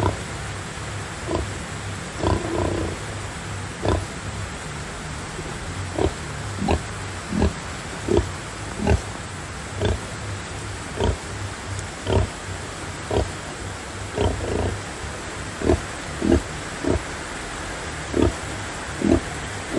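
A sow grunting in short, regular pulses, about one a second, over a steady hiss. This is the rhythmic grunting of a sow nursing her piglets.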